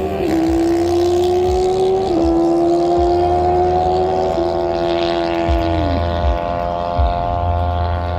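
Drag-racing motorcycle making a pass down the strip, heard from the starting line. Its high engine note drops a step at each upshift, about two and four seconds in, then falls away past the middle of the run as the rider shuts off.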